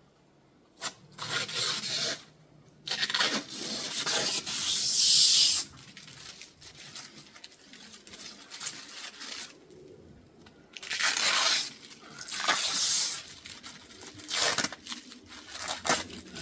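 Protective plastic film being peeled and ripped off a new uPVC window frame in several separate pulls, the longest and loudest about three to five seconds in.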